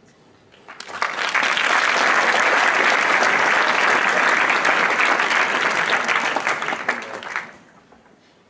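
Audience applauding. The clapping builds about a second in, holds steady for around six seconds, and dies away near the end.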